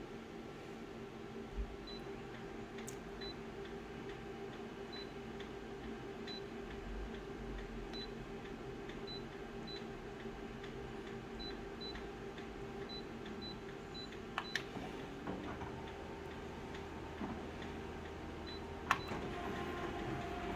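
Konica Minolta copier's touchscreen giving short high beeps as its keys are tapped, over the machine's steady hum. A couple of sharp clicks follow, and near the end Start is pressed and the copier starts a job.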